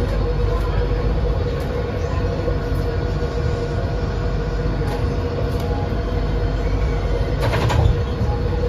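Palm Jumeirah Monorail car running along its guideway, heard from inside the front car: a steady rumble with a constant humming tone. A brief burst of noise comes about seven and a half seconds in.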